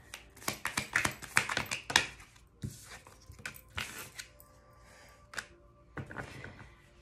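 Tarot cards being handled and laid out on a table: a quick run of card flicks and taps in the first two seconds, then scattered taps and short sliding swishes.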